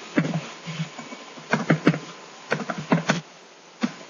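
A series of about a dozen irregular short taps, bunched in small clusters, heard over a video-call connection.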